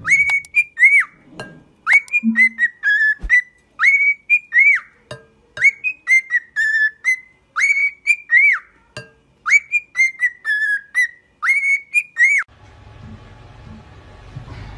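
Cockatiel whistling a tune: short phrases of clear high whistles that swoop up and down, repeated about every two seconds, stopping abruptly about twelve seconds in.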